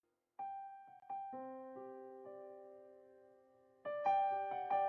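Slow background melody played on a keyboard, single sustained notes that ring and fade, starting about half a second in, with a new phrase of several notes near the end.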